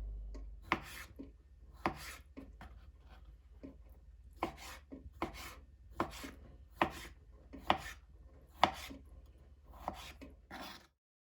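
Knife chopping on a cutting board: a firm cut about once a second with lighter taps between, stopping shortly before the end.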